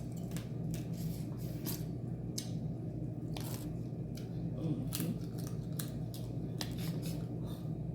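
Crab leg shells being cracked and snapped open, a string of sharp, irregular cracks and clicks over a steady low hum.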